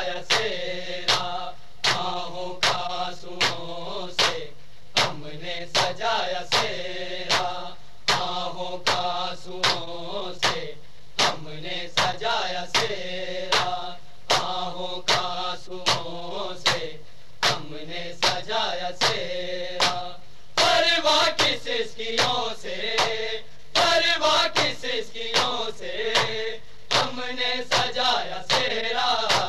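Male voices chanting an Urdu noha, a Shia lament, over regular matam: sharp slaps of hands on chests at about three every two seconds. The singing swells louder twice in the latter half.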